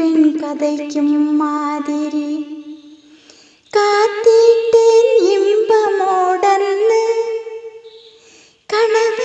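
A woman's unaccompanied voice carrying the melody of a Malayalam chinthu-style song without words, humming with closed lips. It comes in long held phrases with gliding pitch: one ending about three seconds in, a higher one from about four to eight seconds, and a new phrase starting near the end, with short breaths between.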